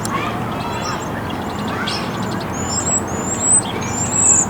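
Small birds chirping: a run of short, high, sweeping chirps in the second half, the last two the loudest, over steady background noise.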